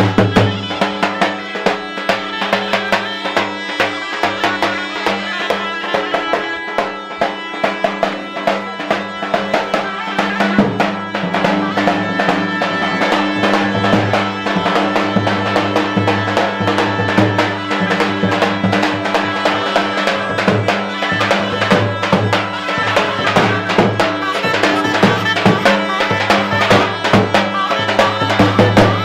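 Live Balkan folk dance music played loudly: a large double-headed tapan drum beaten in a steady, fast rhythm under a wind instrument carrying a held folk melody.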